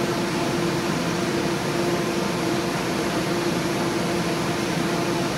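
Alternator and starter test stand running: a steady whirr of motor and fan with one constant humming tone.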